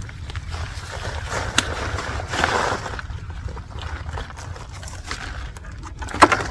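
Soil and a plastic 5-gallon grow bucket being handled, rustling and scraping in short swells, with a few sharp clicks near the end, over a steady low rumble.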